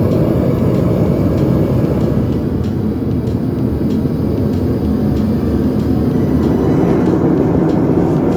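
Home foundry furnace burner running: a steady, deep rush of noise with no distinct pitch.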